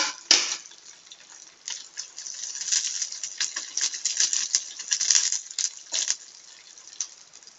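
Tempering frying in hot coconut oil in a small pan: mustard seeds, sliced onion, dried red chillies and curry leaves sizzling with dense, irregular crackles and pops, loudest through the middle and thinning out near the end.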